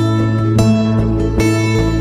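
Background music: guitar chords over a steady bass, changing chord every half second or so.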